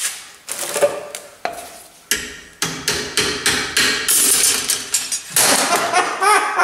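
Steel rod and homemade roller bender clanking as the bender is worked: a series of sharp metallic knocks, many followed by a short ringing tone, with a scraping squeal near the end.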